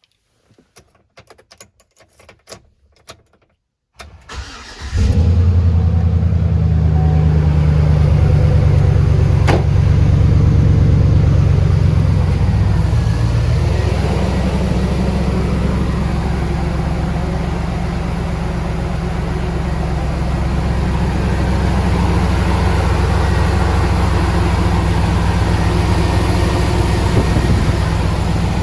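2003 GMC Sierra pickup engine starting after a few faint clicks, catching within about a second, then idling steadily; the idle settles a little lower after several seconds.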